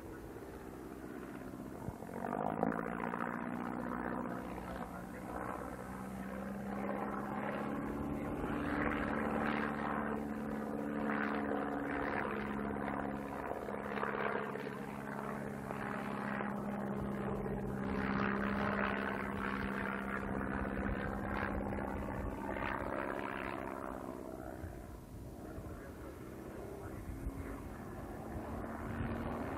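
A vintage biplane's piston engine and propeller droning as it flies aerobatics. The sound swells about two seconds in, and the pitch shifts up and down as power and airspeed change.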